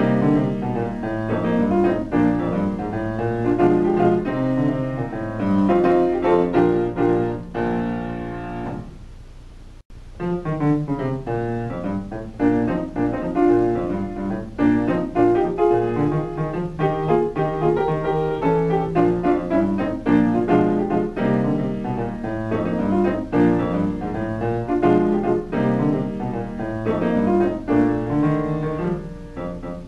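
Piano music. One piece fades out about nine seconds in, and after a short pause another piano piece begins.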